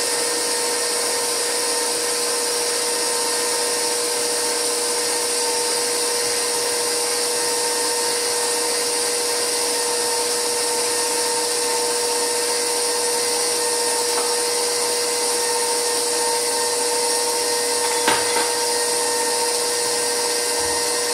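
Electric stand mixer running steadily with a constant motor whine, its beater creaming butter and sugar together. One light knock near the end.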